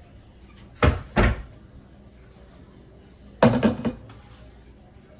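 Sharp clunks of kitchen handling: two in quick succession about a second in, then a short clatter about three and a half seconds in.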